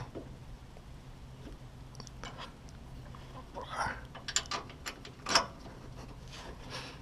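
Scattered metal clicks and clunks of hand tools and the steering stabilizer's mounting bolt being worked into place, bunched together about two thirds of the way in, with one louder clunk.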